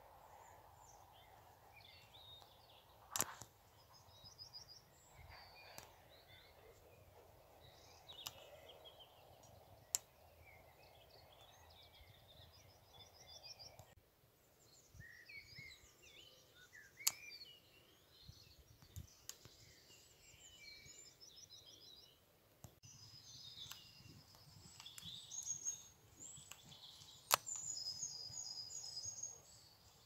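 Several small songbirds singing and calling, with quick chirps and short rapid trills, faint over a soft steady rushing noise in the first half. A few sharp clicks stand out, the loudest about three seconds in, at about seventeen seconds and near the end.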